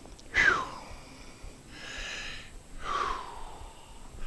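A man breathing hard and wheezing, out of breath from exertion by his own account of bad breathing: a loud "whew" exhale about half a second in, a noisy in-breath around two seconds, then another falling, wheezy out-breath near three seconds.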